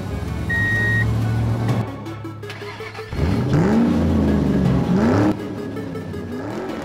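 A vehicle engine revving about three seconds in, its pitch sweeping up and down for about two seconds, over background music. A short electronic beep sounds near the start.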